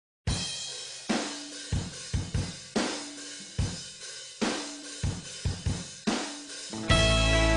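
Background music: a drum kit plays a slow, even beat of kick, snare and cymbal hits. Near the end the full band comes in with guitar.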